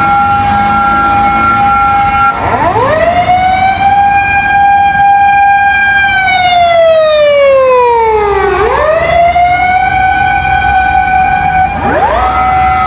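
Fire engine's motor siren wailing. It holds a high pitch, dips and climbs back about two and a half seconds in, then slowly falls to a low pitch around eight and a half seconds in before winding back up. It dips and climbs once more near the end.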